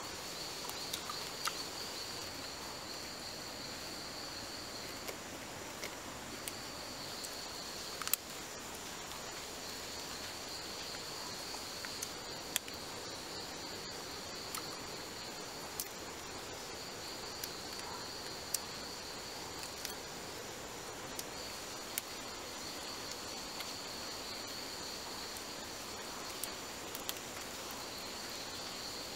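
Rainforest insect chorus: a steady high-pitched trill that runs in stretches of several seconds with brief breaks, over a soft background hiss. Scattered faint clicks and ticks sound now and then.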